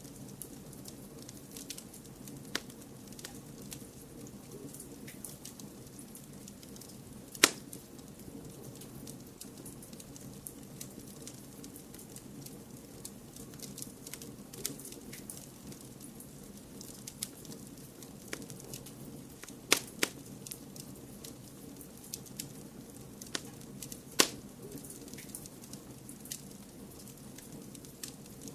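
Wood fire crackling in a fireplace: a steady low rushing bed with scattered sharp pops and snaps. The loudest pop comes about a quarter of the way in, two more close together about two-thirds through, and another a little later.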